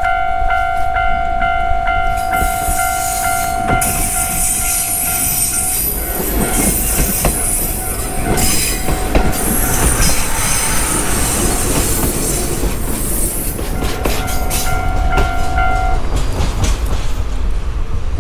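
A railway level-crossing alarm rings a steady, pulsing electronic tone. It is drowned out for several seconds as a diesel-hauled trolley tourist train rolls past with wheel and rail-joint clatter and engine noise. The alarm is heard again briefly and stops about 16 seconds in, as the DE15 diesel locomotive draws away.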